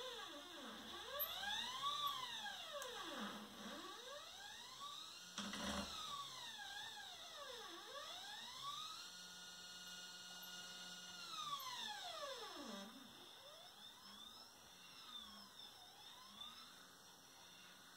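Two stepper motors on a telescope mount, driven through GRBL, whining as they slew the telescope. Each move is a rising whine as the motor speeds up, a held pitch, then a falling whine as it slows, repeated several times, with one longer steady run in the middle. A short knock comes about five and a half seconds in.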